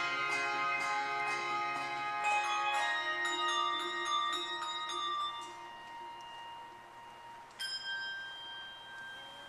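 Handbell choir ringing: soft handbell notes struck over a sustained chord that slowly fades, then a single high bell struck about three-quarters of the way through and left to ring out, as the piece ends.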